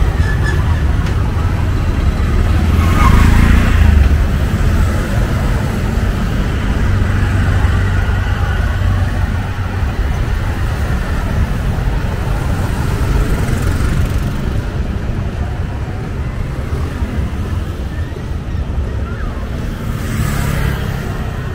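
Street traffic ambience: a steady wash of passing motorbikes and cars, swelling louder about three seconds in as something passes close.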